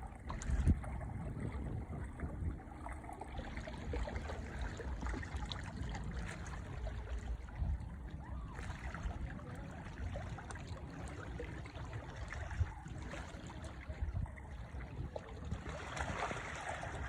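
Lake water lapping and trickling at the shore, a steady wash sprinkled with small splashes and ticks.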